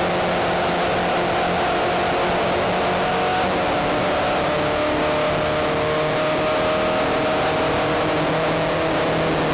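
Spec Racer Ford's four-cylinder engine running hard at high revs, heard from the open cockpit with wind rush over it. The engine note holds fairly steady, shifting slightly about halfway through.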